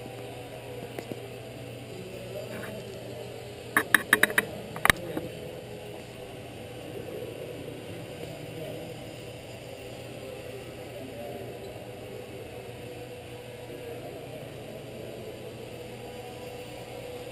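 Faint steady hum and background murmur of a large hall, broken about four seconds in by a quick run of five or six sharp clicks.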